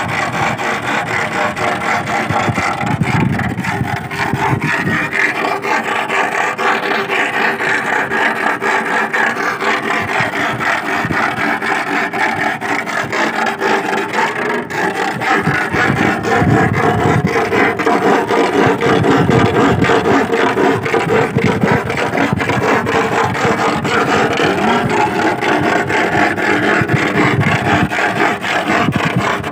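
An iron rod rubbed rapidly back and forth against a rusty iron stake driven into the sand, making a steady rasping scrape with a ringing, squeaky tone. This is the noise used to drive sea worms (sasing) out of the sand so they need not be dug up.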